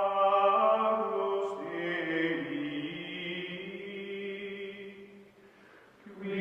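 Outro music of long, held, chant-like tones. It fades almost away about five seconds in and comes back just before the end.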